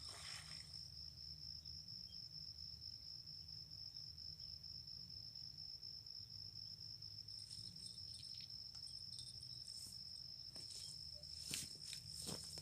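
An insect, likely a cricket, trilling as one steady high-pitched note. A few faint clicks come near the end.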